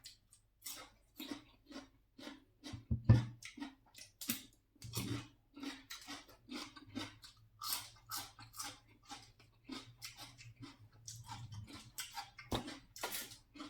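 Close-up mouth sounds of a person chewing a bite of giant oyster: irregular wet clicks and smacks.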